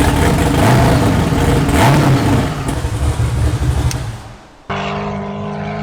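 Twin-turbocharged LS V8 sand car engine running hard, with heavy wind and rushing noise over it. It fades out, and about four and a half seconds in it cuts to a different, steady pitched drone.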